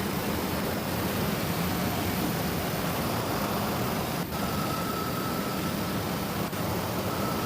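A looped sound effect of steady, rumbling noise like a running vehicle or train. About four seconds in, after a brief break, a thin steady high tone joins it.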